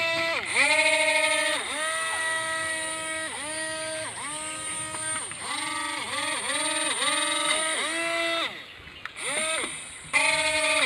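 Small DC pencil motor of a homemade bottle air boat spinning its propeller with a steady whine. The motor is cut and restarted over and over by the remote, so the pitch dips and climbs back each time. It goes quieter for a second or so about eight seconds in.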